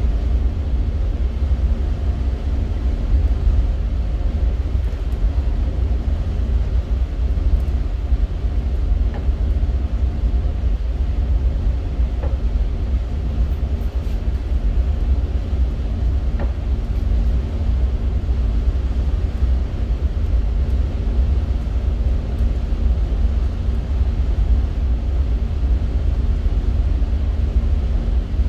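Towboat engines running steadily: a deep, even rumble with a steady hum above it.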